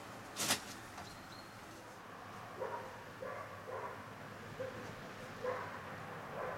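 Short animal calls, like distant barking, repeated about six times at uneven spacing over a steady low background rumble, with one sharp click about half a second in.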